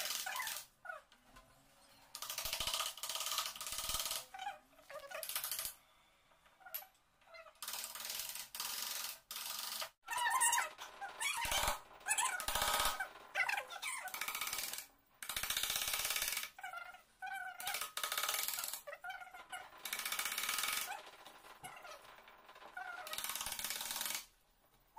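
Steel wood chisel scraping and paring wood out of a lock mortise in a door edge: repeated short rasping strokes with squeaky tones and a few sharp knocks, sped up by fast-forward.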